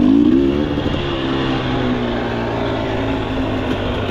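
Enduro motorcycle engine, a Husqvarna, heard close from on the bike as it pulls away: the pitch rises in the first half-second, then the engine runs at a steady speed while riding along.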